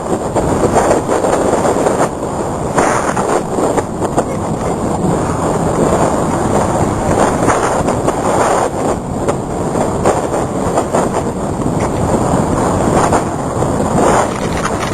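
Hurricane wind blowing hard and steadily, surging in gusts every second or two.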